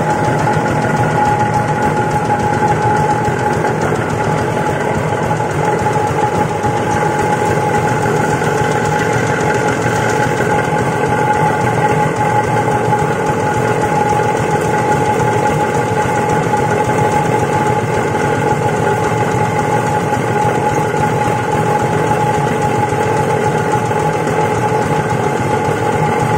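Rice husk grinding mill running steadily, a continuous machine noise with a constant high whine.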